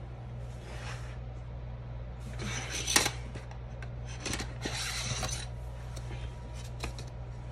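Pen scratching on planner paper and a plastic ruler being handled and slid across the page: short scratchy rubbing sounds with a sharp tap about three seconds in, over a steady low hum.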